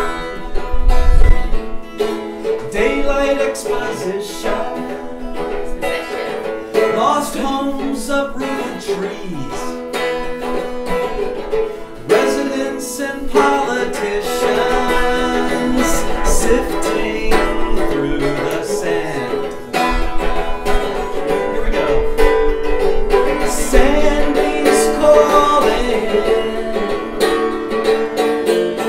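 Cümbüş, a Turkish banjo-like lute with a metal bowl body, strummed steadily in a bluegrass style, with a man singing along at times.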